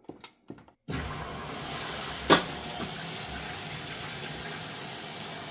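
Top-load washing machine starting a cycle: a few button clicks, then water rushing steadily into the tub as it fills in its sensing-fill stage, with one sharp click about two seconds in.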